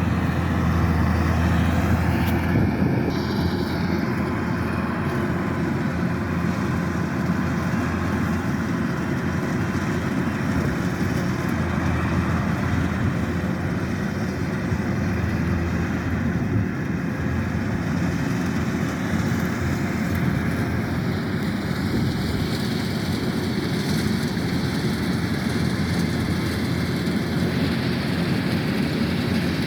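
Kubota DC-108X combine harvester's diesel engine and threshing machinery running steadily under load while cutting rice, a dense, even drone with a faint high whine over it.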